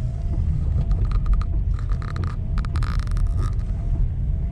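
Car driving slowly on a wet, storm-littered road, with a steady low rumble of engine and tyres. Between about one and three and a half seconds in come several bursts of rapid crackling hiss as the tyres roll through water and debris.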